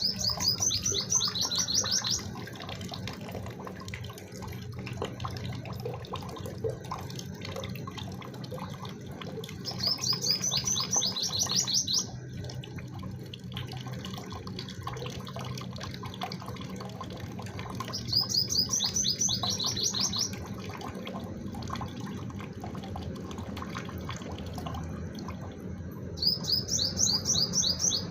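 A bird singing a rapid, high trill of about two seconds, repeated four times at intervals of roughly eight to ten seconds, over a faint steady low hum.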